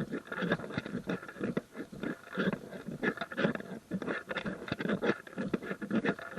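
Hikers' footsteps crunching on a gravel trail, about two steps a second.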